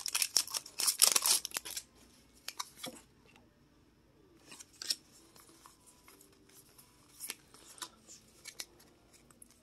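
Foil wrapper of a Pokémon TCG booster pack being torn open and crinkled by hand for about the first two seconds. After that come softer rustles and light clicks as the cards are slid out and handled.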